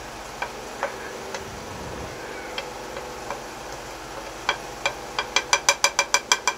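Metal spoon clicking and tapping against a plate and bowl as ground spices are scraped off the plate into minced meat. A few scattered clicks, then a quick run of taps, about five a second, near the end.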